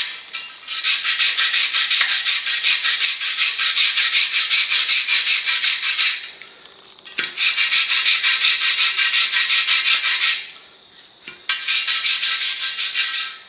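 Wire brush scrubbing loose rust off the inside of a motorcycle's rusty steel spoked wheel rim, in rapid back-and-forth strokes. It comes in three spells, with short pauses about six and ten and a half seconds in.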